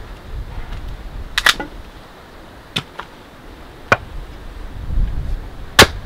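Wood being split for kindling: four sharp, dry cracks at uneven intervals, the last one the loudest.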